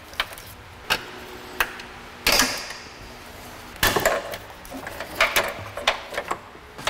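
Plastic wire-harness clips and an electrical connector on a car's ABS sensor wire being unclipped and unplugged by hand: irregular sharp clicks and knocks. The loudest come about two and a half and four seconds in, and a quick run of smaller clicks follows near the end.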